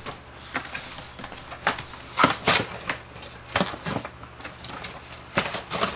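A cardboard collector box and its clear plastic packaging being handled and opened by hand: irregular clicks, taps and scraping.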